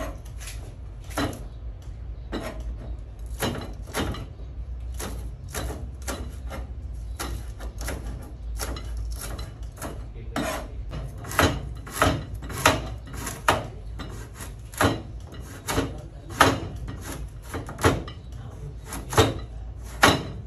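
Kitchen knife chopping vegetables on a plastic cutting board: a run of sharp, uneven knocks, about one or two a second, getting louder about halfway through.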